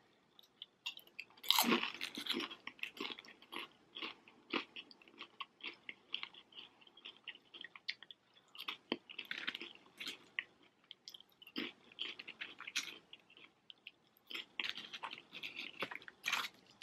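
Crunching and chewing of crispy fried wontons, with a loud crunchy bite about a second and a half in and irregular bursts of crackly chewing after it.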